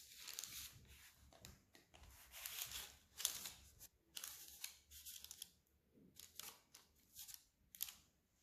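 Baking parchment paper rustling and crinkling in short, faint bursts as it is handled and pressed into a frying pan.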